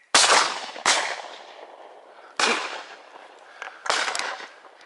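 Shotgun fired four times at ducks in flight, the first two shots close together and the first the loudest, each trailing off in a long rolling echo.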